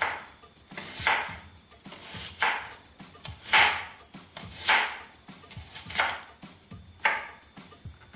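Kitchen knife slicing through an onion onto a cutting board, about seven cuts a little over a second apart.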